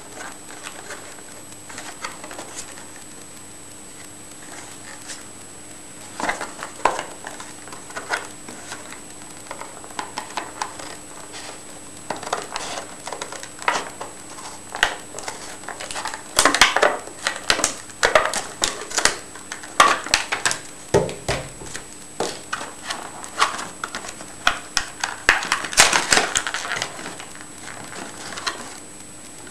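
Plastic blister packaging and card backing of a headlamp being handled and pried open: a run of clicks and crackles, with louder bursts of crinkling about halfway through and again near the end.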